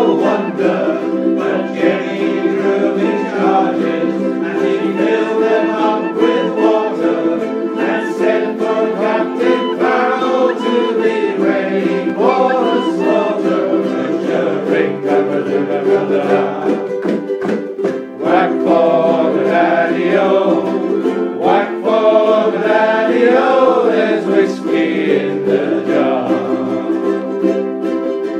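Penny whistle playing a folk melody over a strummed ukulele accompaniment.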